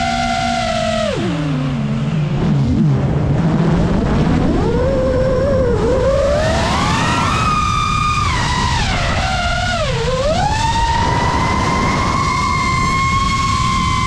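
FPV quadcopter's brushless motors and propellers whining, the pitch following the throttle. The pitch drops low about a second in, climbs again after a few seconds, dips briefly near the ten-second mark, then holds a steady high whine. A rush of air runs beneath.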